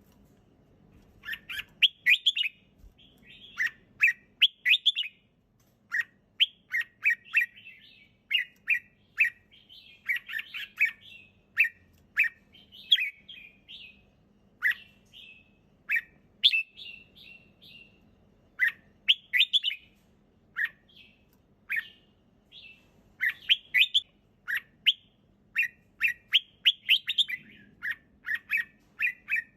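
Red-whiskered bulbul singing: short phrases of quick, chirpy notes, repeated again and again with brief pauses between them.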